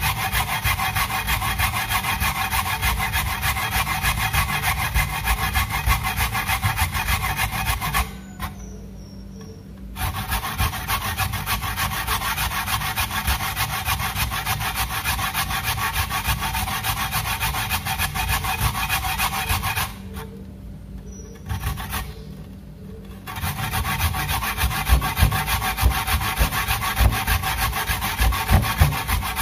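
Coconut flesh grated on a metal hand grater: fast, repeated scraping strokes. The scraping stops twice for a second or few, about 8 seconds in and again around 20 seconds in, then goes on.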